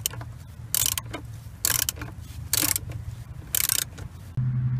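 Ratchet wrench clicking in five short bursts about a second apart, each burst one back-swing of the handle. The ratchet is turning a socket on a 6 mm hex-head bolt, loosening it from the flexplate/flex damper ring.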